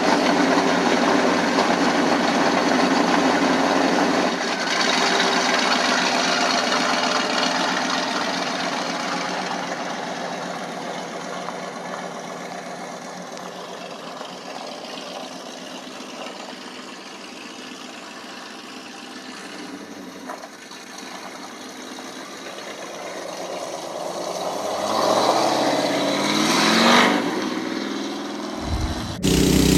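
Mini excavator engine running. It fades away over the first half and grows louder again. A few seconds before the end its pitch swings up and down, then the sound cuts off abruptly.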